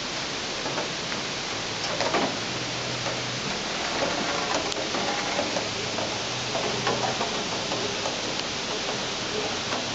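Steady rain falling: an even hiss with scattered louder drops and patters on nearby surfaces.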